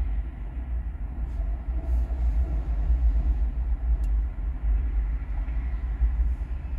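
A low rumble whose level wavers throughout, with one faint click about four seconds in.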